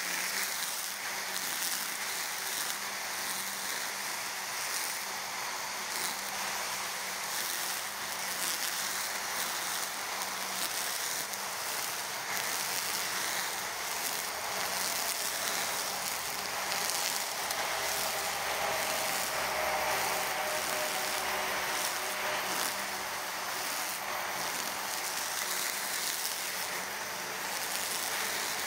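EGO Power+ cordless brush cutter running steadily as its trimmer head cuts through tall grass, a constant hiss with a faint motor whine. Road traffic runs underneath, with a low rumble swelling about two-thirds of the way through.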